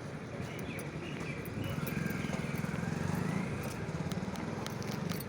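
A motor vehicle engine running close by, with a rapid low pulsing that is strongest in the second half, over general street noise.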